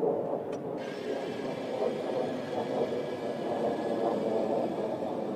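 F-16 fighter jet's engine running at ground idle: a steady rushing noise, joined about a second in by a faint high whine and hiss.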